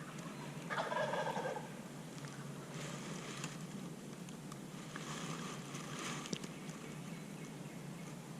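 Wild turkey gobbler gobbling once about a second in, a single rolling gobble lasting under a second.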